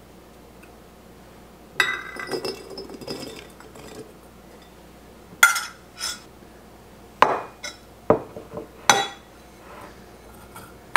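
Kitchen utensils knocking against glass canning jars and dishes as chopped vegetables are spooned into the jars. There is a short stretch of scraping and rustling, then about five sharp clinks of glass.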